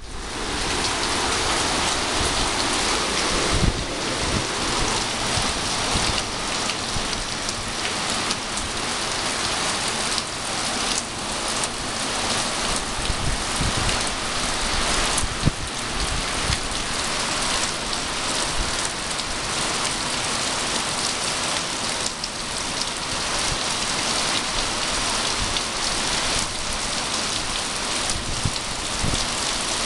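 Heavy hurricane rain pouring down in a steady hiss, with a few brief low thumps, the clearest about four seconds in and again midway.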